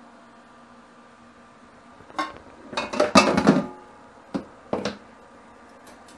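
Stainless steel plate set down into a stainless steel sink against a metal bowl, clattering and ringing for about a second and a half, followed by two short knocks.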